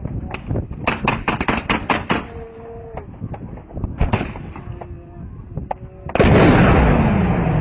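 Rapid small-arms gunfire, about ten sharp shots in the first two seconds, then scattered single shots. About six seconds in, a sudden loud rush of noise with a falling tone takes over.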